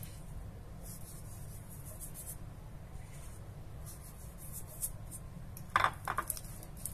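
Metal fork mashing and stirring softened butter with herbs in a ceramic dish: faint scraping and rubbing, with a few sharp clicks of the fork against the dish near the end.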